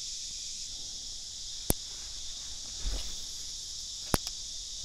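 Steady high-pitched insect chorus, like crickets. Two sharp clicks, about a second and a half in and near the end, and a soft thud near the middle.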